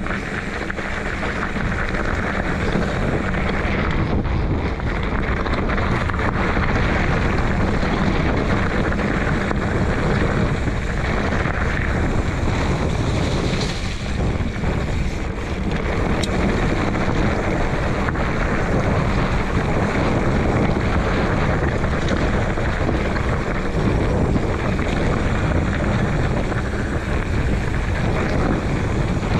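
Steady rushing noise of wind on the microphone, with a faint low hum underneath.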